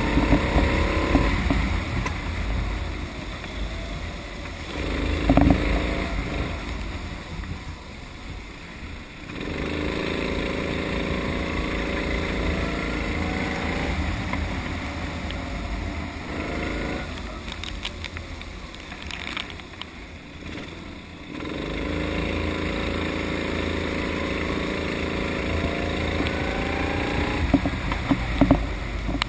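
Rental kart engine heard from the kart on a wet track, with a low rumble underneath. It holds a steady note for several seconds, then drops away twice as the throttle comes off and picks up again. A few sharp knocks come through about five seconds in and near the end.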